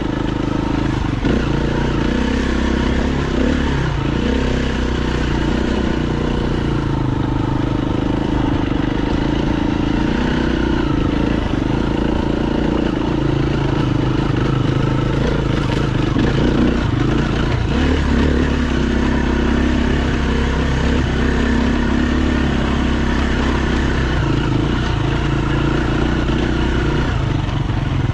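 KTM dirt bike engine running continuously under way, its pitch rising and falling several times with throttle and gear changes.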